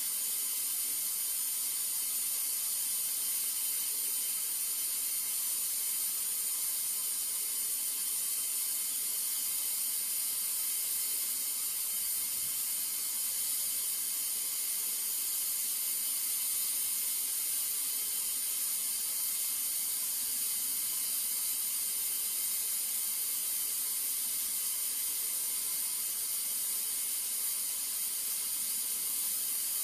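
TIG welding arc on stainless steel: a steady high-pitched hiss running without a break during one continuous weld.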